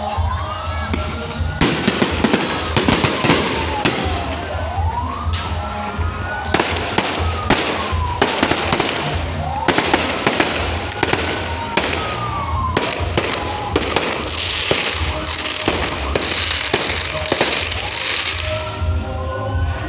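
Aerial fireworks going off in quick succession: sharp bangs and crackling bursts, densest in the first half. Behind them a siren wails, rising and falling slowly and over and over.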